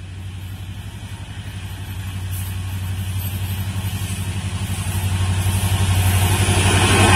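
Twin WDG4 diesel-electric locomotives, with EMD two-stroke V16 engines, hauling a tanker train as they approach. Their low, rhythmic engine throb grows steadily louder.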